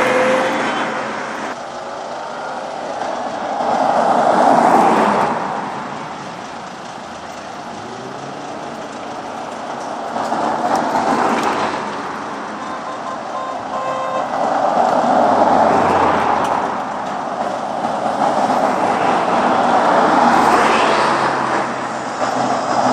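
Cars driving past one after another, each one's engine and tyre noise swelling up and fading away as it goes by, about four passes in all.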